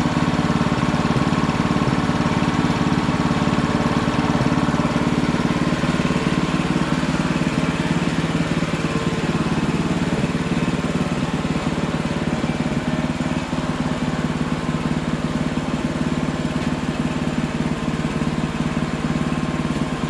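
Hudson Hunter portable sawmill's gasoline engine running steadily, its tone shifting slightly about six seconds in.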